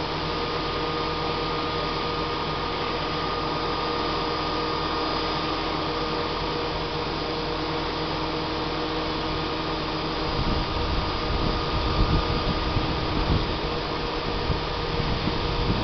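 Hi-rail crane truck's engine and hydraulic pump running steadily, a continuous whir with a steady whine in it. From about ten seconds in, irregular low rumbling gusts come in over it.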